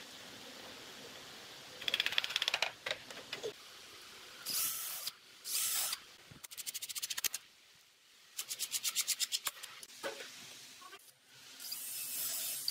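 Makita 18V cordless drill drilling and driving screws into pine boards in several short bursts. Some bursts carry a fast, even rattle.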